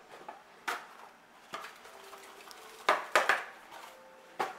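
Kitchen utensils and ingredient containers clinking and knocking against a mixing bowl and countertop as ingredients are added, a few separate sharp knocks with the loudest pair about three seconds in.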